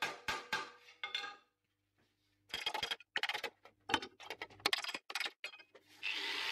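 Rapid light hammer taps on sheet steel held over a steel shaping stake, about five a second, stopping after about a second and a half. After a short pause there are several irregular metal clanks. Near the end an angle grinder starts grinding steel.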